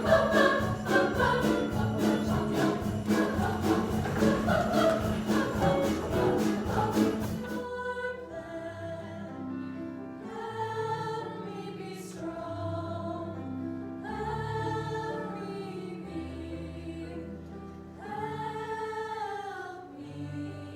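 Christmas music: an upbeat song with jingling sleigh bells keeping the beat. About seven seconds in it changes abruptly to quieter, slower choral singing of long held notes.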